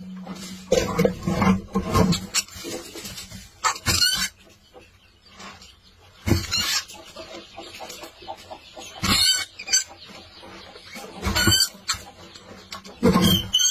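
Rats stuck on a glue trap squealing in short, shrill bursts, about seven times, with quieter scuffling between them.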